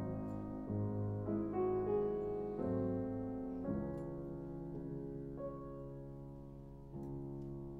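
Background solo piano music: slow, held chords that change about once a second.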